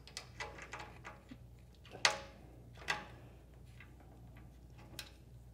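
A few light clicks and taps of a metal leveling foot being tried under the raised base of a jointer-planer. The sharpest comes about two seconds in and another a second later.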